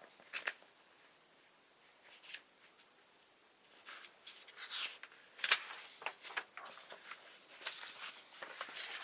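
Paper and cardboard being handled: short rustles and light knocks, sparse at first and busier from about four seconds in.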